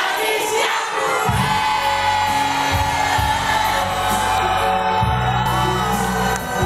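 Crowd cheering and whooping, then a live cumbia band kicks in about a second in with a heavy bass line, with singing over the crowd noise.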